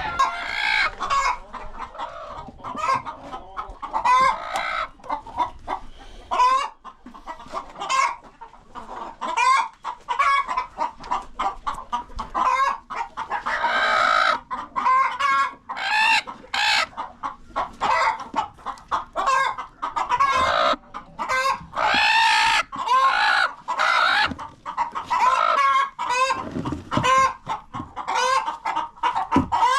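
A flock of chickens clucking, with many short calls overlapping one another throughout and a few longer calls among them.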